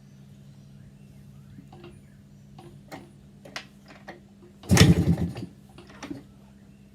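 Yamaha IT 490's two-stroke single turned over once on the kickstarter, a short loud churn of under a second about five seconds in that does not catch: a cold engine, unrun for months. Light clicks and knocks from handling the bike come before and after it.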